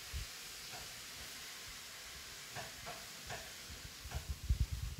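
Steady faint hiss, a few short faint squeaks in the middle, and low rumbling bumps near the end, typical of a handheld camera being moved.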